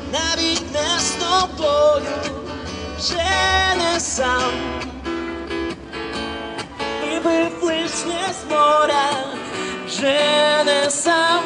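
Street musicians performing a song: a voice singing to an acoustic guitar.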